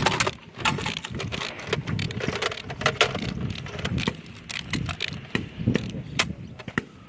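Irregular sharp clicks and metallic rattling, several a second but with no steady rhythm, over a noisy outdoor background.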